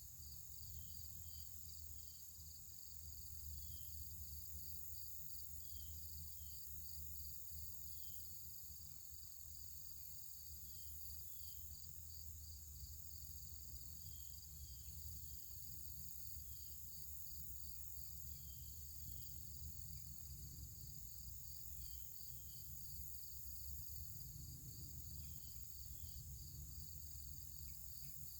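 Outdoor insect chorus: crickets chirping in a steady, evenly pulsing high trill over a continuous high-pitched insect buzz, with short high chirps scattered through and a low rumble underneath.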